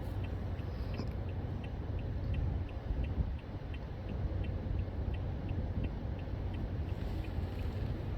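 Steady low rumbling outdoor noise, with a faint high chirp repeating evenly about twice a second.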